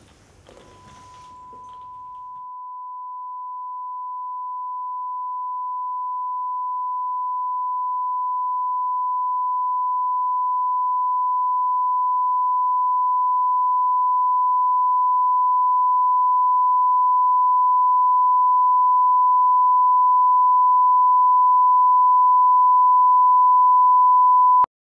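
A single high, pure electronic tone held without a break, swelling slowly louder for over twenty seconds and then cutting off abruptly near the end.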